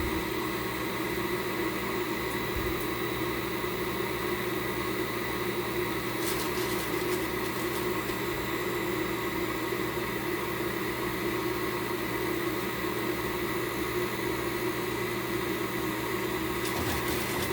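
Steady mechanical hum of a kitchen fan or appliance, even and unchanging, with a few faint light ticks about six seconds in and again near the end.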